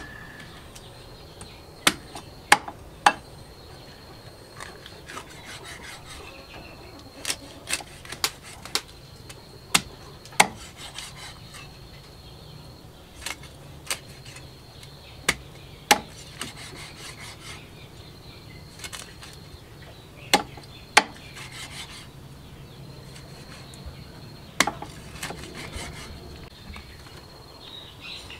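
A cleaver chopping a catfish into steaks on a chopping block: sharp knocks, often in pairs or threes, every few seconds, over a steady high-pitched insect drone.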